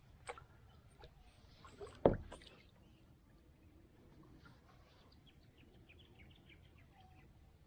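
Handling knocks on a fishing kayak: a couple of light clicks, then a single loud thump on the hull about two seconds in. Later comes a quick run of short high chirps.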